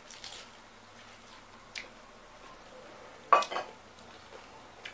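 Eating at a table with a steel serving plate: a few light clicks, then a loud, short double clatter against the metal plate a little over three seconds in.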